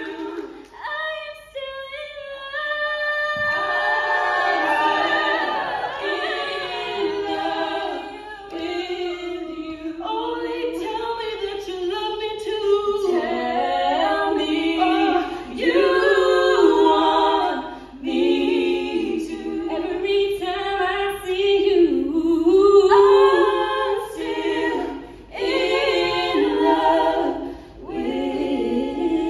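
Three female voices singing a cappella in close harmony, with no instruments, beginning about a second in.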